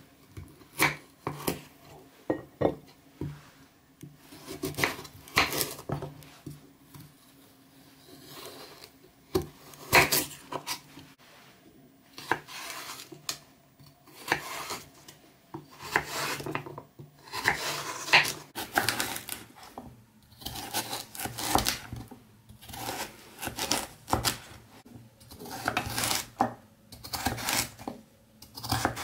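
Chef's knife cutting a peeled carrot on a wooden cutting board: irregular sharp knocks of the blade through the carrot onto the board, coming in quicker runs in the second half as the carrot is diced.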